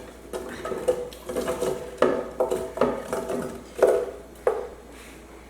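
Chopped watermelon being tipped into a blender jar, a run of soft knocks and clatters as the pieces land, quieter near the end.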